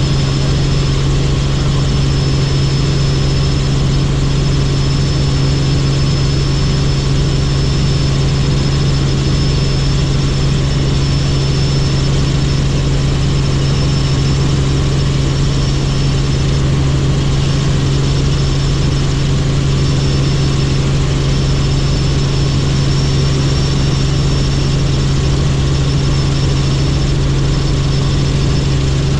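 Helicopter in flight: a steady engine and rotor drone, with a constant high-pitched whine above it.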